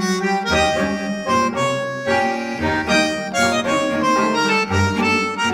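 Instrumental background music: a melody of quickly changing notes over a low bass line.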